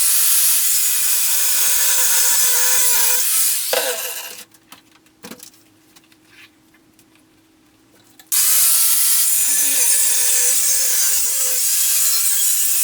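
Electric power tool running under load, a loud grinding noise over a motor whine that dips and wavers in pitch. It stops about four seconds in, leaving a faint hum, and starts up again about four seconds later.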